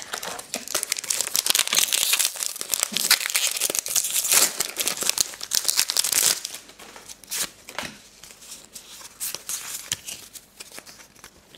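Foil Pokémon trading-card booster pack wrapper being torn open and crinkled, a dense crackling for about the first six seconds. After that come sparser crinkles and light clicks as the wrapper and cards are handled.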